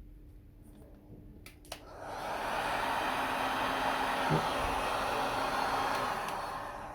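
Electric heat gun switched on with a click and blowing steadily: a fan-driven rush of hot air that builds up about two seconds in, holds steady, and tapers off near the end.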